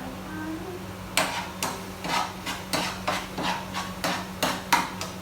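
A run of about ten sharp knocks from a kitchen utensil, two to three a second, starting about a second in and stopping near the end.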